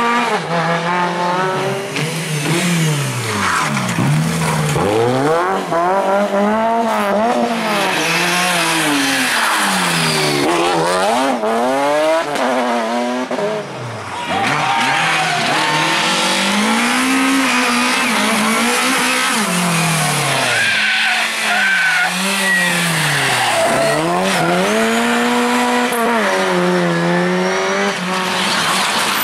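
Rally car engine being driven hard, its pitch climbing and dropping again and again through gear changes and throttle lifts, with tyres squealing and sliding on the surface.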